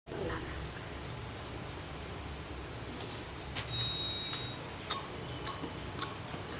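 High-pitched chirping repeating evenly, about three chirps a second, that stops about three and a half seconds in. A short steady high tone follows, then a few sharp clicks.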